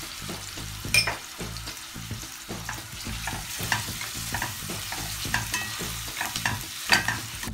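Sliced sucuk sizzling in hot oil with onions, garlic and green peppers in a stainless steel pan, stirred with a plastic spoon that scrapes across the pan. Two sharp knocks stand out, about a second in and near the end.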